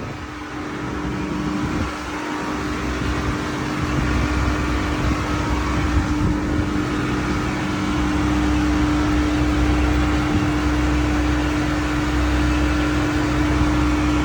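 HVAC chiller machinery running: a steady hum over broad mechanical noise, with a deeper low rumble coming in about four seconds in as it gets louder.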